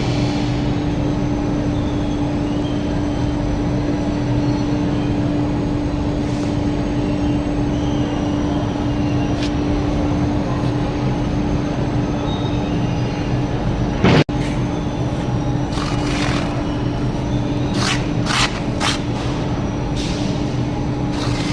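Steady mechanical drone with a constant hum, broken by a single loud crack about two-thirds through and several short sharp clicks or taps near the end.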